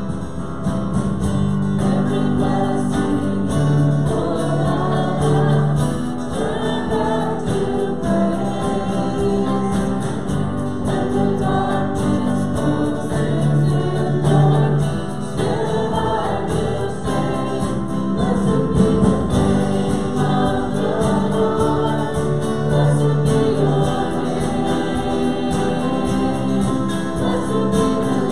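A group of voices singing a worship song together, with acoustic guitar accompaniment.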